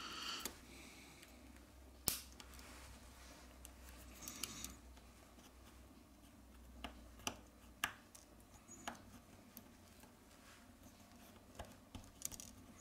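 Faint, scattered sharp clicks and taps of a small plastic tool and fingers working on a smartphone's circuit board, pressing flex-cable connectors into place, over a low steady hum.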